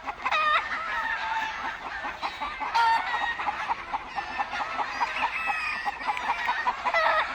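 Many gamefowl chickens hollering at once, a dense overlapping racket of squawks and alarm cackles, raised at a butterfly flying over the yard.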